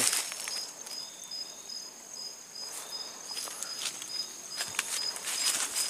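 Night insects chirring in a high, evenly pulsing trill. Brush rustles and footsteps crunch through undergrowth about three seconds in and again over the last second or so.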